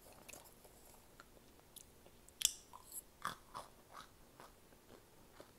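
A bite into a microwaved cornstarch chunk: one sharp crunch about two and a half seconds in, then a few quieter chewing crunches that soon die away, the sign of a chunk that is still soft inside and not crunchy all the way through.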